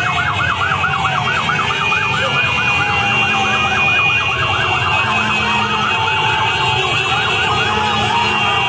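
Several sirens yelping fast and overlapping, about four sweeps a second, easing into slower wails after about five seconds, over the steady rumble of many motorcycle engines.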